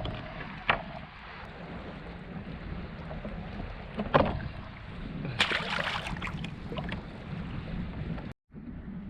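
Wind buffeting the microphone over water sloshing around a kayak, with a few sharp knocks and a brief splashy rustle in the middle; the sound cuts out for a moment near the end.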